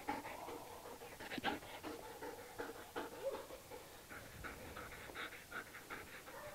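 A German Shepherd dog panting: faint, quick, even breaths at about three a second.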